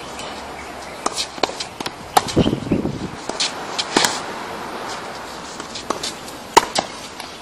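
Tennis rally on court: sharp pops of the ball off the racket strings and off the court surface, one every second or two, with footsteps between strokes.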